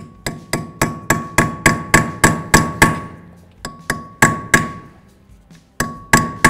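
Hammer striking a chisel set against a seized, worn Phillips rotor retaining screw to knock it around: sharp metal-on-metal blows, about four a second, each with a ringing note. The blows come in three quick runs with short pauses between them.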